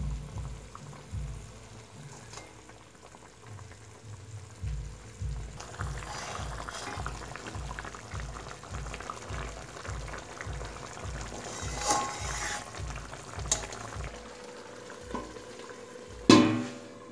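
Tamarind sauce bubbling and sizzling in a metal kadai as fried fish goes in and is stirred, with a spatula knocking against the pan. Near the end comes a loud clatter as a metal plate is set over the kadai as a lid. Background music with a steady beat plays underneath.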